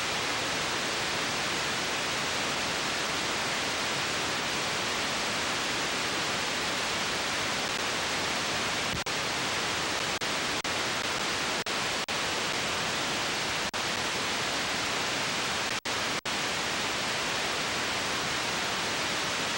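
Steady static hiss from a snowy, unrecorded stretch of videotape, cut by several very short dropouts in the second half.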